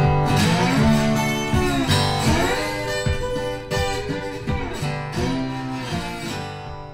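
Background music: a guitar-led instrumental track playing, fading out over the last few seconds.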